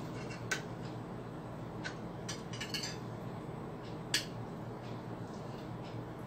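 Spoon and fork clinking and scraping against a plate while eating: a handful of light, sharp clicks, the sharpest about four seconds in, over a steady low hum.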